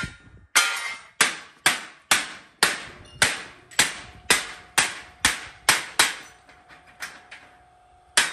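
Hammer blows on a cut-steel sphere fire pit, knocking the cut-out pieces loose: a steady run of sharp metallic strikes about two a second, each ringing briefly. Near the end come a few lighter taps and then one more hard blow.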